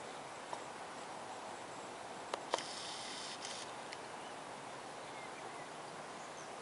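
Steady outdoor background noise, with a few sharp clicks and a brief high hiss about two and a half seconds in.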